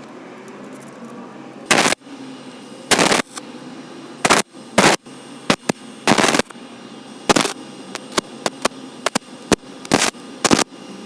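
Home-made belt grinder driven by an angle grinder, with about a dozen short, loud, harsh grinding bursts at irregular intervals over a steadier, quieter running sound.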